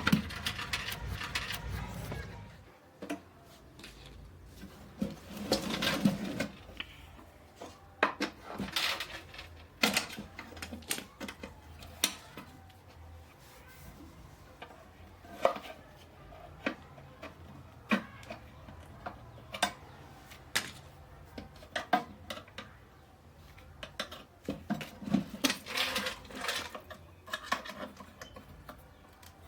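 Irregular clicks, taps and short scrapes of small hard parts being handled and worked on by hand, with a busier burst of handling noise in the first two seconds.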